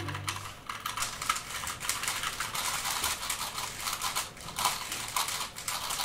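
Rapid, irregular plastic clicking of puzzle cube layers being turned, starting about half a second in as background music fades out.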